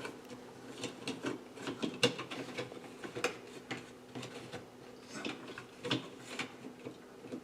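Quiet, uneven plastic clicks, taps and scrapes of a First Alert BRK SMI100-AC smoke detector and its cover plate being handled and fitted to the ceiling mounting bracket, with a few sharper clicks about two, three and six seconds in.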